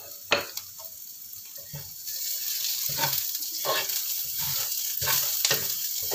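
Spice paste and chillies sizzling in hot oil in a wok while a metal spatula stirs, scraping and knocking against the pan. A sharp clunk comes just under half a second in, and the sizzling grows louder about two seconds in, with a scrape of the spatula every second or so.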